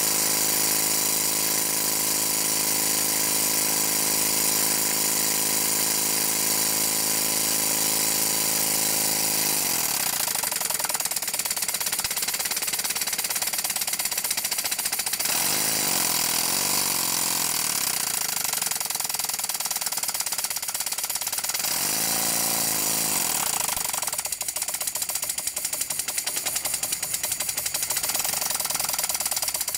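Small vertical single-cylinder Stuart model steam engine running on live steam, at first fast with an even rapid beat. About ten seconds in, a hand presses on the flywheel to load it, and the speed wavers and drops. Near the end the beats come slower and separate, over a steady hiss.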